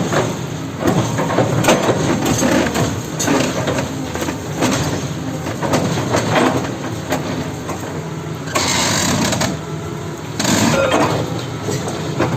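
Doosan excavator working: its engine runs steadily under many irregular knocks and clanks, with two louder rushing bursts, one about nine seconds in and a shorter one about a second later.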